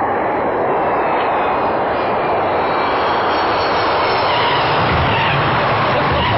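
Aircraft engines running, a loud steady noise, with a deeper rumble growing near the end.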